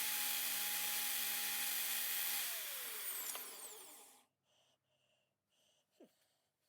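Small electric motor of a cheap drill bit sharpener running freely with a steady whine, then switched off about two and a half seconds in and winding down in pitch to a stop. A faint short chirp follows near the end.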